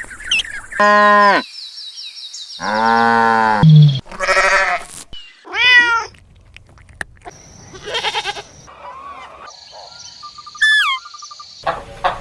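A series of separate animal calls in quick succession: two long pitched cries near the start, then several shorter cries and calls.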